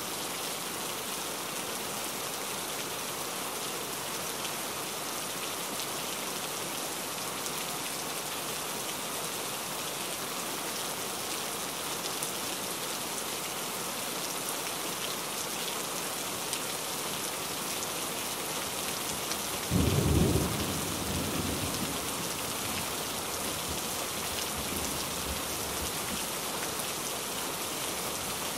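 Steady rain falling, with one clap of thunder about two-thirds of the way through that rumbles on and fades over several seconds.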